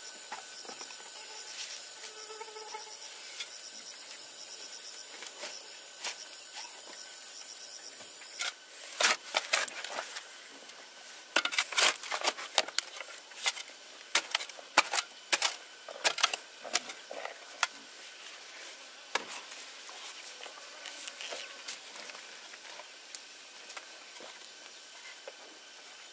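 Insects chirring steadily in the background, stopping about eight seconds in. Then comes a long run of sharp, irregular crackles, snaps and tearing noises, thickest in the middle and thinning out toward the end.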